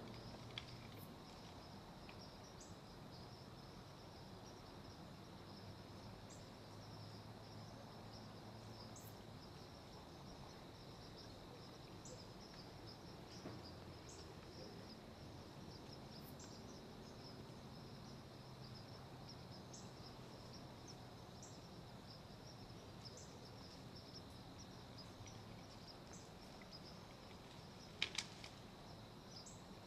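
Faint outdoor ambience: insects trilling steadily and high-pitched. Two sharp clicks close together near the end.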